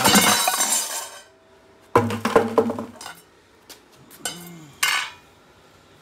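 Copper granules and a large copper glob tumbling out of an upturned plastic bucket onto a concrete floor. A rattling spill runs for about the first second, followed by several separate metallic clinks and knocks as the bucket is emptied.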